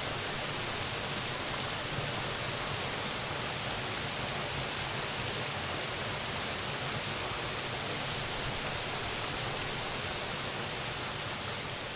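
Flowing water rushing steadily with a dense, even hiss, beginning to fade out near the end.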